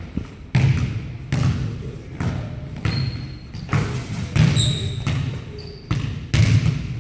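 Basketball dribbled on a hardwood gym floor: sharp bounces about once a second as the player drives to the basket. A few short high squeaks, most likely sneakers on the hardwood, come between the bounces.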